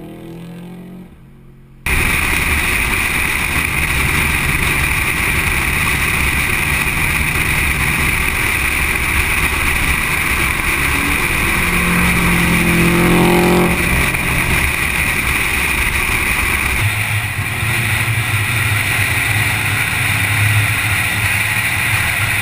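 A car's engine running close by, loud and steady. It cuts in abruptly about two seconds in, and its note shifts briefly around the middle.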